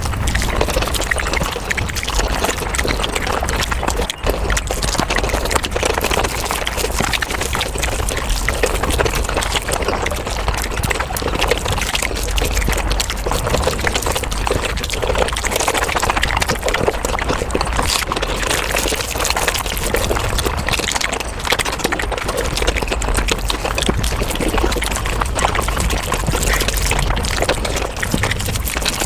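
Mukbang eating sounds sped up five times: a dense, unbroken run of rapid wet chewing and slurping noises, the individual bites and sips blurred into a fast crackling stream.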